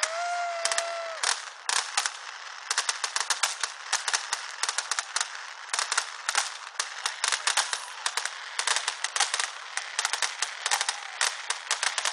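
Fireworks display: dense, rapid crackling and popping from exploding shells, many cracks a second. A held whistle sounds over it for about the first second.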